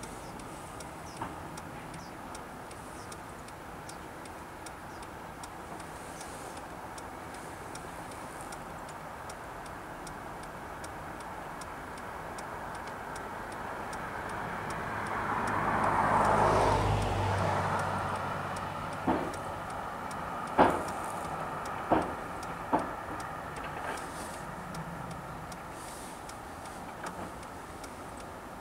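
A road vehicle passes, swelling and then fading over about six seconds midway, with a low hum at its loudest. After it come four sharp knocks a second or so apart, over a steady outdoor hiss.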